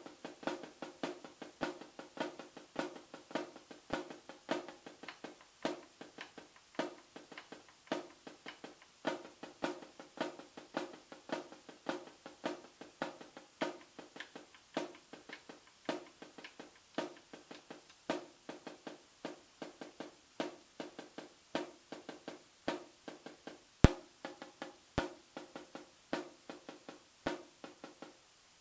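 Snare drum played with sticks in a steady, continuous run of flam accents. The left stick's notes are moved over to the rim, so they click there while the right hand's strokes sound on the head. A couple of louder single hits come near the end.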